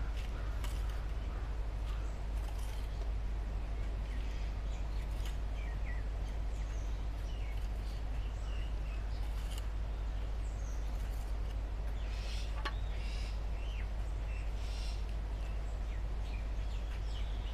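Birds chirping here and there over a steady low outdoor rumble, with a few faint scuffs of hands pressing loose potting soil into a plastic pot.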